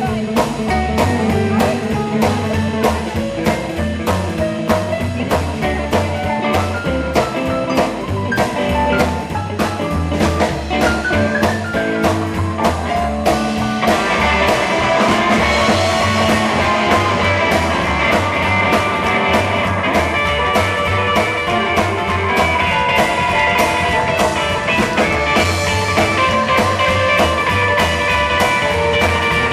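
Live rockabilly band playing an up-tempo rock-and-roll number, with electric guitar over a steady drum-kit beat and a walking bass line. The band gets fuller and brighter about halfway through.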